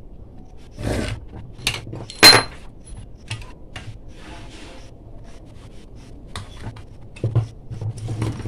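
Hand-disassembly of a sewing machine motor on a workbench: a screwdriver working on the motor, small parts and tools handled and set down, making scattered clicks and scrapes. One sharp clack about two seconds in, and a few knocks near the end.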